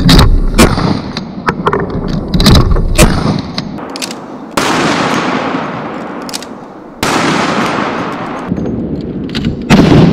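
Barrett .50 BMG rifle fired in a rapid string of loud shots: several sharp cracks close together in the first three seconds, then single shots about every two and a half seconds, each trailing off in a long echo across the water.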